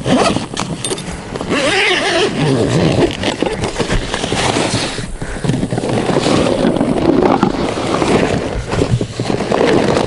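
Stiff PVC fabric rustling, crinkling and scraping as a rolled bundle is pulled out of a nylon carry bag by hand and unfolded on the ground.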